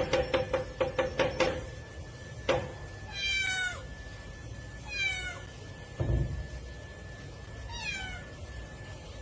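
A cat meowing three times, each meow short, high and falling in pitch, a couple of seconds apart. At the start there is a quick run of sharp tapping clicks, and there is one dull thump between the meows.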